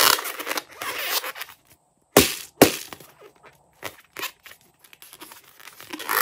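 Hands squeezing and rubbing a long rubber balloon: rustling rubber handling noise, with two sharp snaps a little after two seconds in and a few small clicks after them.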